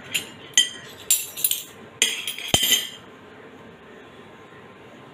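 Metal measuring spoons clinking against each other and a plate as they are set down, several sharp ringing clinks over about three seconds, then quiet.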